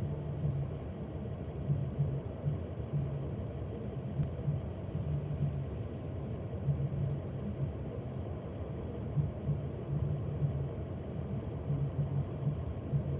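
Low, steady rumble of a car idling, heard from inside the stationary car, with an uneven throb in it.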